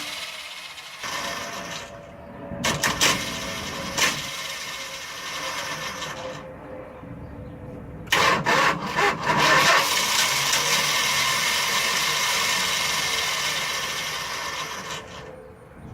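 Starter motor of a 1978 Tioga motorhome whirring in two long bursts, each opening with a few sharp clacks, without the engine catching. The starter is spinning without catching the flywheel, which the mechanic takes for a failed starter.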